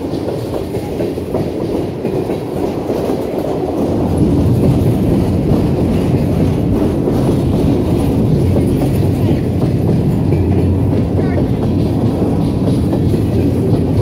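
Empty freight flatcars rolling past, their steel wheels rumbling steadily on the rails. The rumble grows louder about four seconds in.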